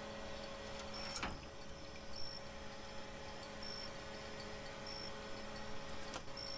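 Faint steady electrical hum, with a light metallic click about a second in and another near the end as metal alligator clamps are handled over a tub of water.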